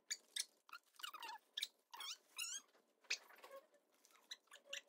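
A Maltese dog whining in rapid, short high squeaks that slide up and down, begging eagerly for a treat held in front of it.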